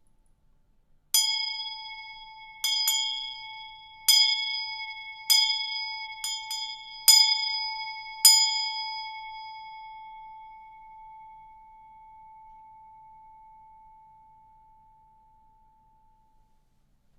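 Small bell struck nine times at uneven intervals, each strike ringing the same high metallic tone. After the last strike the ring fades away slowly over about eight seconds.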